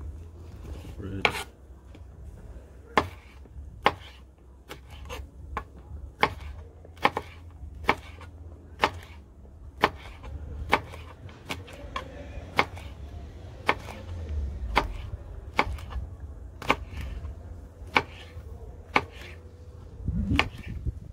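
Chef's knife slicing peppers on a wooden cutting board: a long series of sharp knocks as the blade strikes the board, irregular, about one a second or a little faster.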